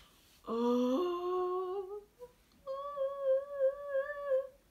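A young woman humming a few wordless notes: a low note that steps up to a higher one, then after a short pause a higher note held for nearly two seconds with a wavering vibrato.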